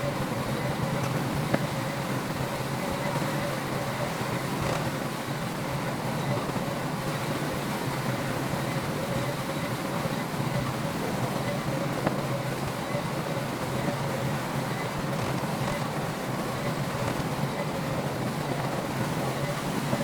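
Heavy diesel earthmoving machinery running steadily: a constant engine drone with a faint steady whine above it.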